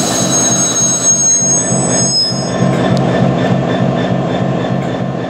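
Class 66 diesel-electric freight locomotive rolling slowly past, with a dense engine rumble and the clatter of its running gear. Thin high-pitched squeals from the brakes are strongest in the first couple of seconds as it slows, and there is one sharp click about three seconds in.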